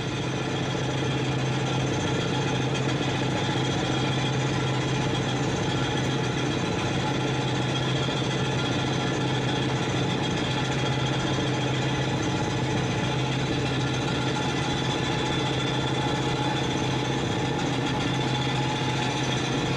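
Construction-site machinery running steadily: a constant engine drone under a fast, continuous mechanical rattle.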